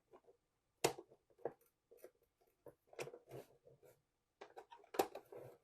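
Scattered light clicks, taps and scrapes of the street light's plastic housing being worked open by hand, with two sharper snaps, about a second in and near the end.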